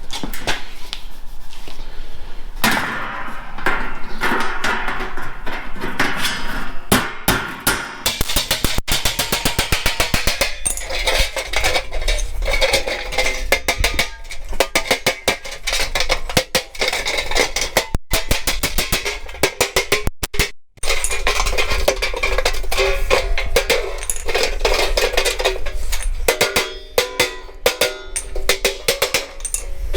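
Background music with a drum beat, over sharp hammer blows on sheet steel as a Pittsburgh seam is knocked together.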